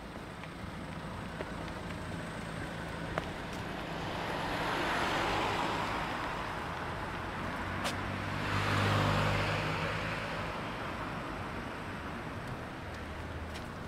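Two cars pass close by in turn, about four seconds apart, each swelling and fading in tyre noise against background traffic. The second, a small hatchback, adds a low engine hum as it goes by.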